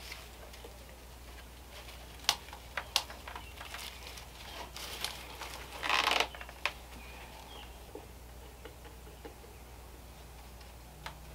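Dry raffia and twine rustling and crackling as the twine is knotted by hand, with scattered small clicks and one louder rustle about six seconds in, over a steady low hum.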